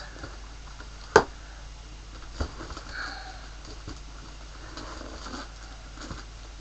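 Scissors being used to cut open a wrapped parcel: a sharp click about a second in, then scattered small clicks and rustles of the packaging.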